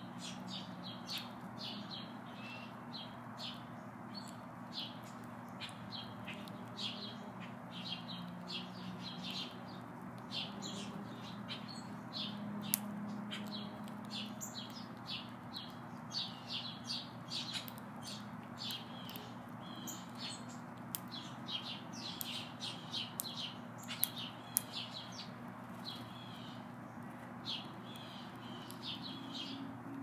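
House sparrows chirping, many short, quick chirps a second with no let-up, over a steady low hum.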